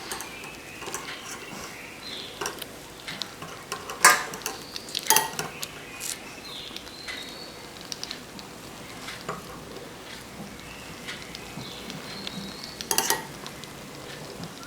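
Eggs being beaten in a bowl with a beater: steady stirring and scraping with intermittent clinks against the bowl, the loudest knocks about four, five and thirteen seconds in.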